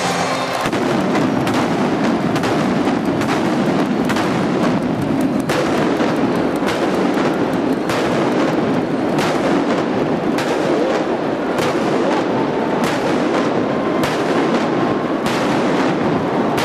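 Aerial firework shells bursting one after another under a closed stadium dome, sharp reports about once a second that echo off the roof, over a steady dense din.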